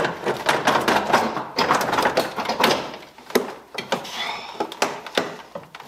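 Plastic dashboard of a 2000 Jeep Wrangler TJ being pulled and rocked loose by hand: a dense run of plastic scraping and clattering with several sharp knocks, busiest in the first three seconds.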